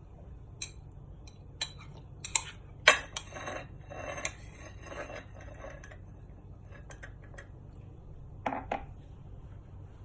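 Cutlery clinking and scraping against dishware: scattered sharp knocks, a busier clatter from about two to six seconds in with the loudest knock near three seconds, then two more knocks near the end.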